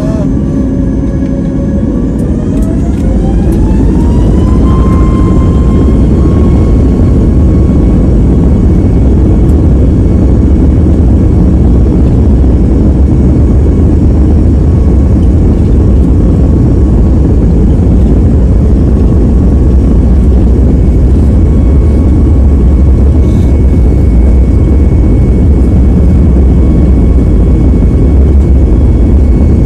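Airliner jet engines spooling up to takeoff thrust, heard from inside the passenger cabin: a whine rises in pitch about two to five seconds in and then holds steady over a deep, loud rumble as the aircraft accelerates down the runway for takeoff.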